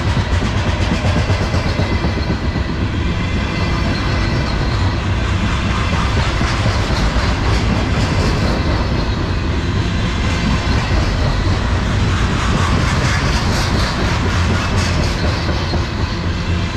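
Freight cars rolling past close by, their steel wheels clattering over the rail joints in a steady, loud run of clicks and rumble.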